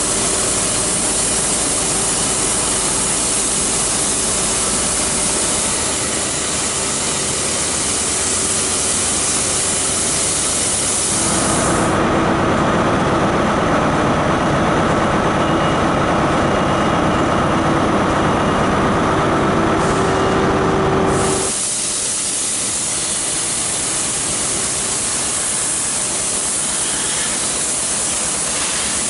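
BR Britannia-class Pacific steam locomotive No. 70013 Oliver Cromwell standing at the platform, hissing steam steadily. From about 11 to 21 seconds in, the hiss turns louder and duller, with a steady hum in it.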